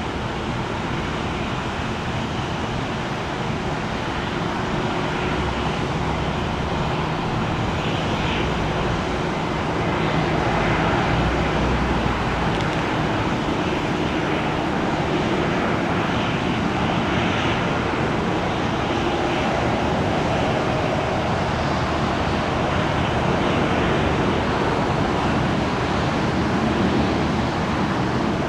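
Jet airliner engines running: a steady rushing noise that grows a little louder about ten seconds in and then holds.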